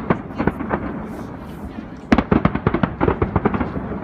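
Aerial firework shells bursting: scattered bangs over a low rumble, then a dense run of sharp, quick pops starting about two seconds in.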